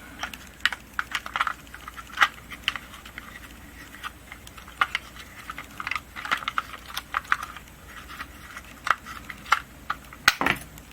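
Small plastic parts of a Ford F150 headlight switch clicking and tapping as they are handled and fitted back together by hand, in irregular light clicks, with a louder snap near the end.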